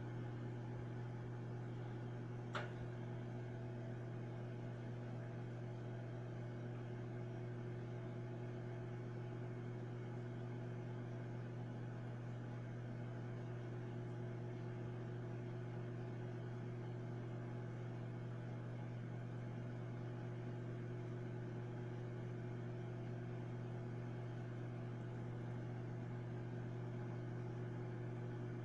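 Microwave oven running a cooking cycle: a steady hum, with one sharp click about two and a half seconds in.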